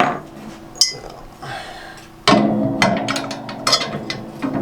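Metal snow-plow parts clanking and knocking together as steel bars are fitted under a mounting plate. There are a few separate knocks early, then a louder clank a little past halfway followed by a run of quick clicks and taps.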